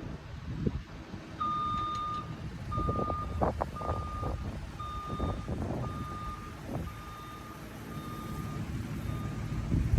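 Back-up alarm of a construction vehicle beeping about once a second, starting a second or so in, over the low rumble of running machinery, with a few knocks in the middle.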